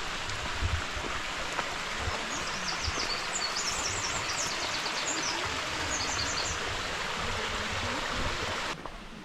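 Stream water rushing steadily, with a run of high, quick chirps over it in the middle. The water sound cuts off suddenly near the end.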